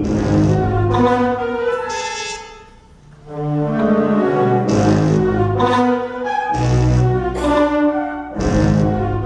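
Symphonic wind band playing loud, sharply accented chords of brass and woodwinds. The sound falls away briefly about three seconds in, then comes back loud with more punched attacks.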